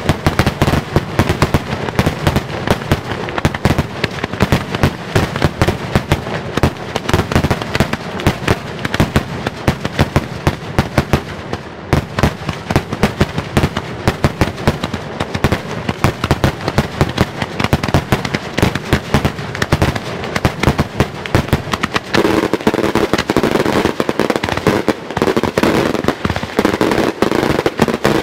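Maltese daytime 'beraq' aerial fireworks: cylindrical shells bursting in the sky into rapid volleys of sharp cracking reports, many a second. About two-thirds of the way through, the volleys turn denser and louder, into an almost continuous crackle.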